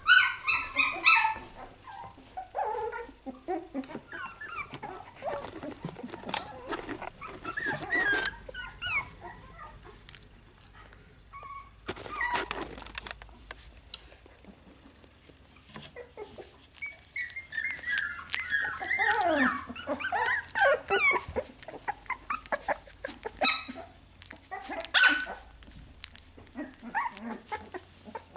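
Finnish Lapphund puppies a few weeks old yelping and whining in high, squeaky calls as they play. The calls come and go, with a cluster at the start and a longer run of falling whines about two-thirds of the way through.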